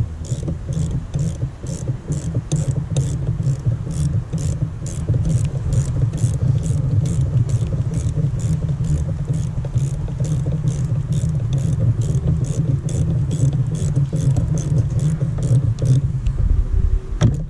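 Low wind rumble buffeting the microphone, with an even high-pitched pulsing about two and a half times a second.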